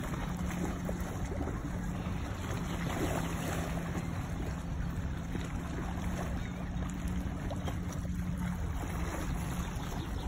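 Lakeshore ambience: small waves lapping at the stony edge, wind on the microphone, and a steady low hum underneath.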